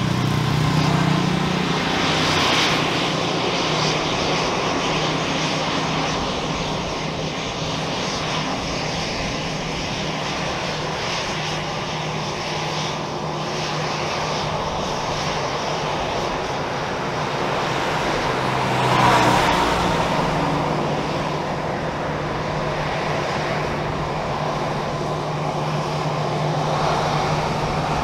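An Airbus A320's jet engines running steadily at taxi power as the airliner rolls slowly along the taxiway, briefly louder about two-thirds of the way through.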